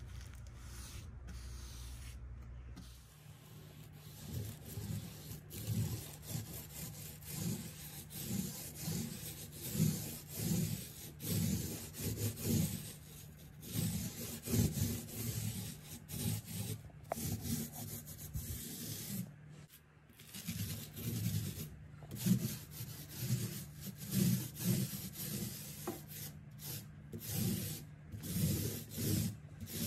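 Small paint roller rolling wet paint onto a panel in rhythmic back-and-forth strokes, about three every two seconds, a soft rubbing sound. The first three seconds hold a low steady hum instead.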